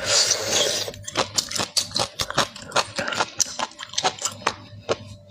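Close-up eating sounds: a rustle lasting about a second, then a quick run of small clicks and crunches as seafood is handled and bitten.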